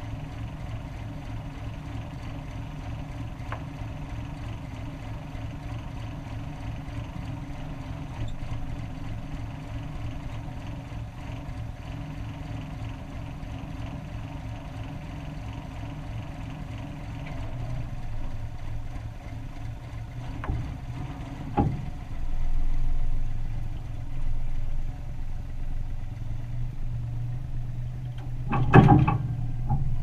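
A loader's diesel engine running steadily, then working harder in surges in the second half. A sharp metal clank comes about two-thirds of the way in, and a louder clatter near the end.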